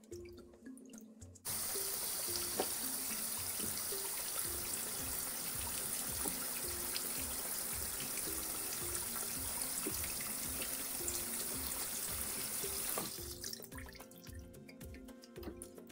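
Tap water running into a sink while grapes are rinsed. It is turned on suddenly about a second and a half in and shut off near the end, with small drips and splashes around it.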